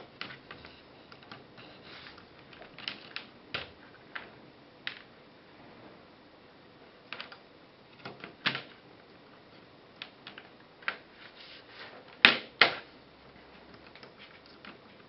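Small plastic clicks, knocks and rustles of cable plugs being pushed into a Raspberry Pi's sockets and cables being moved about on a desk, coming irregularly, with two sharp knocks close together about twelve seconds in the loudest.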